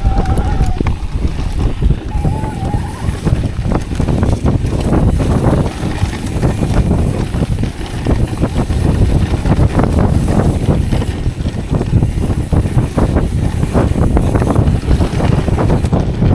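Wind rushing over the microphone of a mountain bike riding fast down a dirt trail, with tyre noise and the bike rattling and knocking over bumps.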